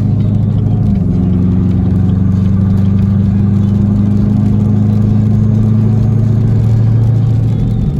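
Chevrolet Camaro ZL1's supercharged V8 droning steadily while driving, its pitch dipping slightly about a second in and the steady drone breaking up near the end.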